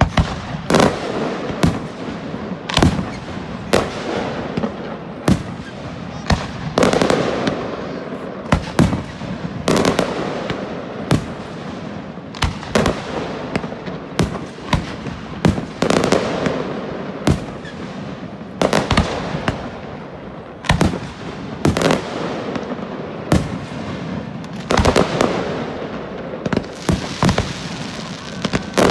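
Fireworks display: a continuous, irregular run of loud bangs from bursting fireworks, about one or two a second, over a steady wash of noise.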